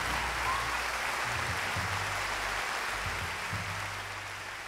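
Audience applause fading out, with low bass notes of closing music underneath.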